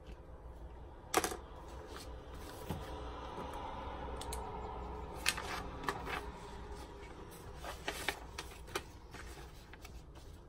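Paper and notebooks handled on a desk: pages turned and a notebook set down and shifted. Several sharp taps and knocks, the loudest about a second in.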